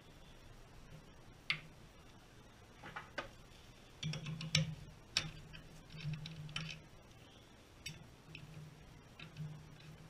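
Metal lathe scroll chuck being loaded and tightened by hand: scattered clicks and knocks of a wooden block and a steel chuck key against the chuck jaws. From about four seconds in, short low drones come between the clicks as the key is turned.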